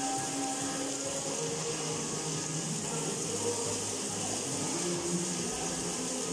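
Fountain water jets spraying and splashing down in a steady hiss, with faint music underneath.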